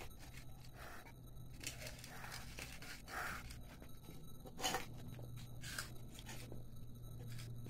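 Faint eating noises: a few soft rustles and short scrapes as children eat snack balls straight from steel plates with their mouths, over a low steady hum.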